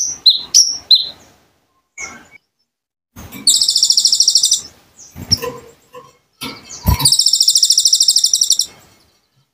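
Song of the small songbird Indonesian keepers call konin: a few short, high chirps, then two fast, high, buzzy trills, each over a second long, the second starting with a short deep knock.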